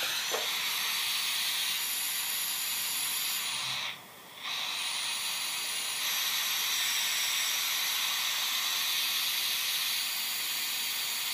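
Oxy-hydrogen gas-welding torch flame hissing steadily. It dips out briefly about four seconds in, then comes back a little stronger while the valves are adjusted.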